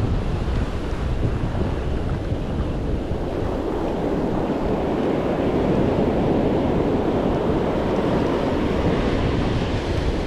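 Surf breaking and washing up the beach, with wind buffeting the microphone; a steady, even rush throughout.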